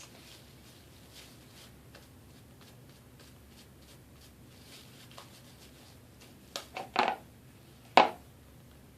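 Freshly activated glue slime being worked by hand: faint sticky clicks, then a few short, louder squelching pops about six and a half to seven seconds in and one sharper one about eight seconds in.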